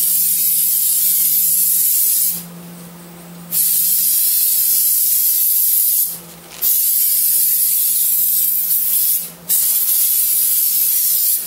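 Aerosol brake cleaner can hissing as it is sprayed onto a bare brake caliper to degrease it before painting: four long bursts of a couple of seconds each, separated by short pauses.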